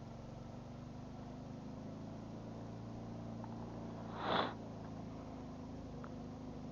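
A steady low motor hum, with one short rushing whoosh about four seconds in.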